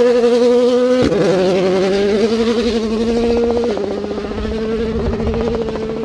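2017 World Rally Car's 1.6-litre turbocharged four-cylinder engine pulling hard on gravel as the car drives away, with two upshifts, about a second in and a little past halfway, each dropping the engine note. The sound fades in the last couple of seconds.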